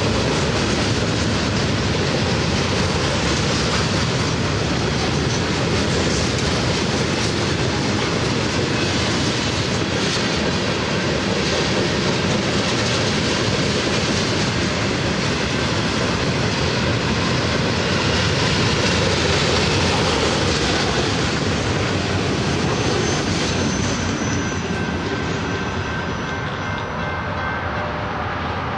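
Freight train of loaded coil steel cars rolling past, a loud steady rumble with wheels clattering over the rails. Thin high squealing tones from the wheels come in near the end as the noise eases a little.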